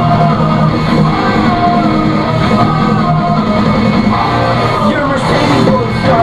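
Rock song with a singing voice over guitar, playing inside the car.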